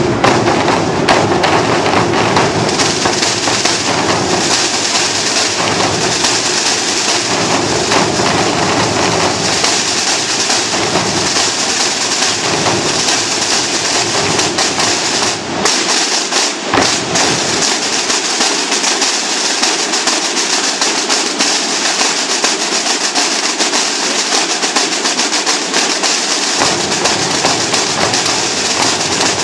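Holy Week drum corps of snare drums and bass drums playing a dense, fast processional drumming with continuous snare rolls. About halfway through the playing breaks briefly, then the deep bass drums drop out for several seconds and come back in near the end.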